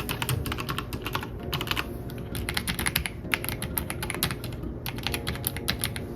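Typing on a mechanical keyboard: runs of quick keystroke clicks with short pauses between them.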